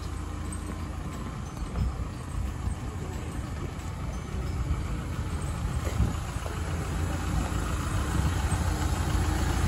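Minibus engine idling steadily, heard at close range as a low rumble.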